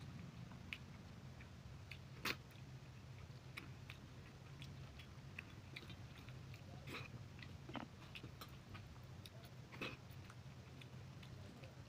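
Chewing and mouth clicks of a person eating rice and fish curry by hand, with scattered soft clicks and a few louder smacks. A low steady hum runs underneath.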